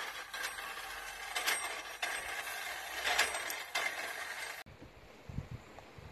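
Charcoal souvla rotisserie turning skewers of chicken: a steady hiss with scattered metallic clinks. About three-quarters of the way through it cuts to a quieter room with a few soft low knocks.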